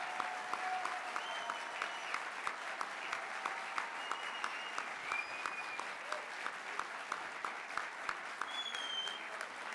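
A large audience applauding, the clapping falling into a regular rhythm, with a few voices calling out above it.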